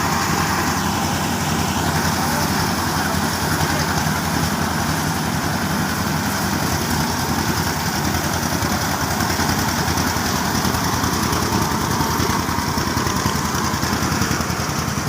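Diesel-powered rice threshing machine running steadily, its engine giving an even, rapid chug under a constant hiss.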